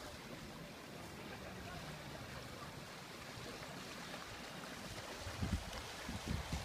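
Steady outdoor wind noise with no clear engine tone, turning into gusty low buffeting of wind on the microphone from about five seconds in.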